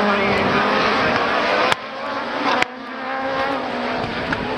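Super1600 rallycross cars racing, their engines revving hard with the pitch rising and falling through gear changes. The sound drops off suddenly twice, about two and three seconds in.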